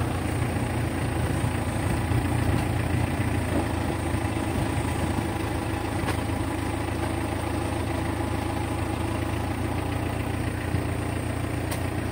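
Boom truck's engine idling steadily, an even low hum that keeps the lift running while the crew works aloft.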